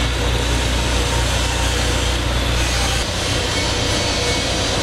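Steady machinery drone with hiss across the range. About three seconds in, the low hum gives way to a rougher, fluttering rumble.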